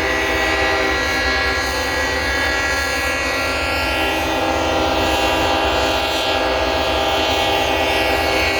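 Many locomotive air horns blowing at once, held in a long, steady, overlapping chord.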